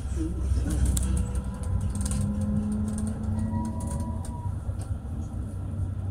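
Tram running along its route: a steady low rumble of wheels on rails and traction motor, with a steady hum through the middle that fades about four and a half seconds in, and a few clicks near the start.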